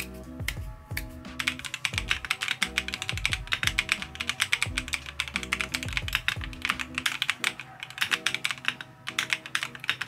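Fast typing on a Dareu Z82 mechanical keyboard: a dense, uneven run of key clacks that starts about a second in and carries on, over background music.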